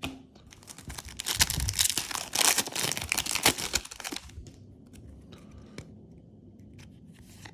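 Foil booster pack wrapper being torn open and crinkled for about three and a half seconds, followed by a few faint clicks of cards being handled.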